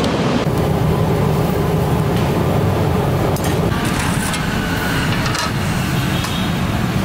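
Steady low rumble of street background noise, with a few faint light clicks about three to four seconds in.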